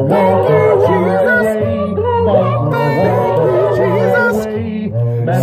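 A cappella gospel singing by one man whose voice is layered into several parts: a lead line with quick bending runs over held harmony and bass notes.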